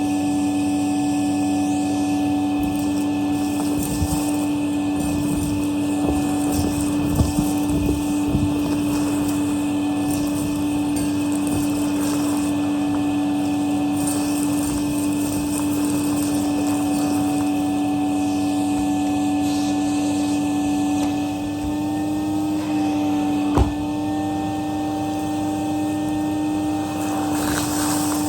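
Henry HVR200-A canister vacuum cleaner running steadily on its low setting, a constant motor hum and whine. A few short knocks and rattles come about a quarter of the way in, and one sharp knock about two thirds of the way through.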